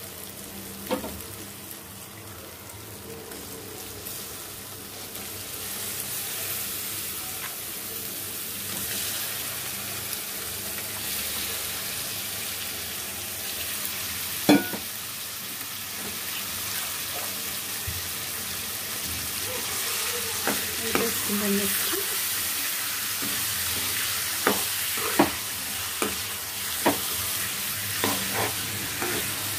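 Raw chicken pieces sizzling and frying in oil with onion-tomato masala in a kadai, the sizzle growing louder after the first few seconds. A single sharp knock comes about halfway, then a metal spatula clinks and scrapes against the pan as the chicken is stirred in through the second half.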